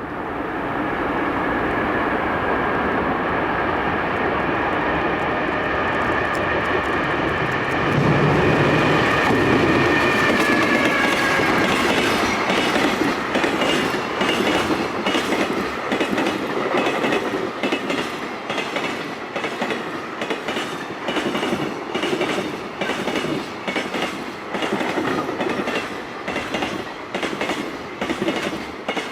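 Freight train passing at speed: the electric locomotive's traction motor whine is heard first, dropping slightly in pitch and fading after about ten seconds. Then a long, even run of wheels clacking over the rail joints as the wagons go by.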